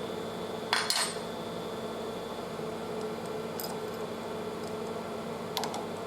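Steady hum of machine-shop machinery with a few light metal clinks, one cluster about a second in and another near the end.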